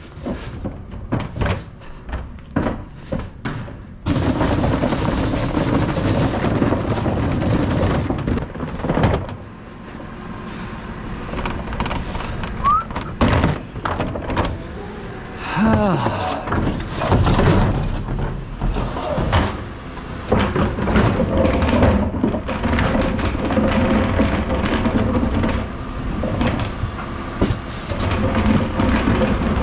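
Wheelie bins rattling over paving slabs with scattered clicks and knocks. About four seconds in, a refuse truck's engine and rear bin lift take over, running continuously, with repeated bangs and thuds as the bins are lifted and emptied into the hopper.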